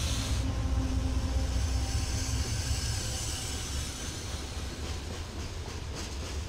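BNSF diesel freight locomotives passing close by with a loud, low engine rumble. After a couple of seconds the engine drone gives way to the rumble and rail noise of tank cars rolling past.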